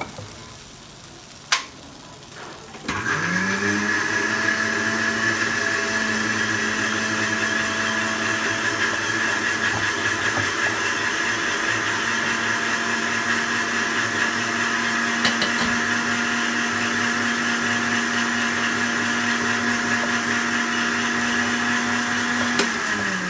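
Electric blender motor switched on about three seconds in, spinning up quickly to a steady high whine, running evenly for about twenty seconds and winding down at the end. A sharp click sounds about a second and a half in, before the motor starts.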